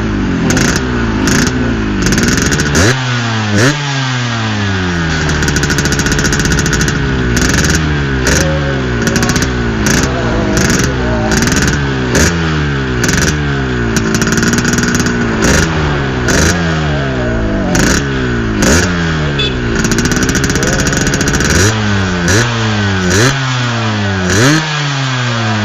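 Yamaha RX-King's two-stroke single-cylinder engine revved in quick repeated throttle blips, each rising sharply and falling back, through a hollowed-out exhaust meant to give a crisp, rasping 'garing ngorok' note, settling to idle a few times between runs of blips. Sharp crackles run through the exhaust note.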